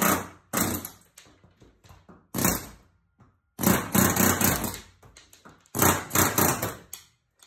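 Pneumatic air hammer with a chisel bit hammering in about five short bursts, the longer ones in the second half, shearing the heads off ceiling-panel rivets whose centre pins have been punched out.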